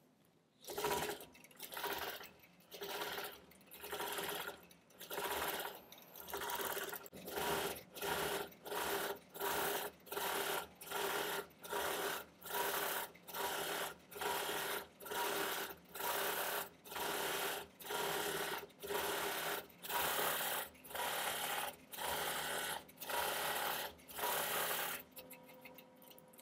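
Computer-guided longarm quilting machine stitching a Greek key pattern. It runs in short bursts of under a second with brief stops between them, a little more than one a second, and falls quiet near the end.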